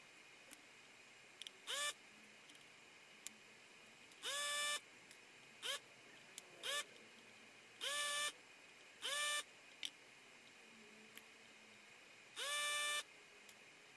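Electric desoldering gun's vacuum pump switched on in short bursts while solder is sucked from the board's joints. Each burst whirs up quickly in pitch and holds steady for a fraction of a second. There are seven bursts, the longest about a second after four, eight and twelve seconds in.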